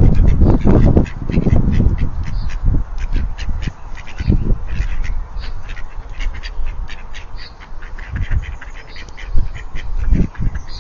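Mallard ducks quacking repeatedly on and off, over a low rumbling noise that is loudest in the first two seconds.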